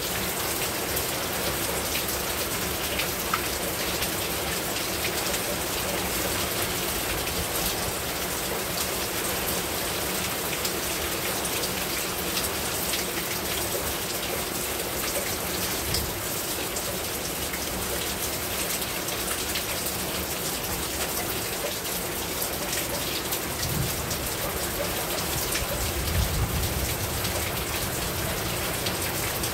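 Heavy rain falling steadily on a rooftop, a dense patter of drops. A brief low rumble comes near the end.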